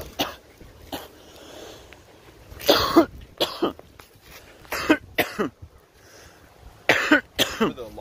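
A man coughing repeatedly, in several fits of two or three hard coughs each, the loudest about three seconds in.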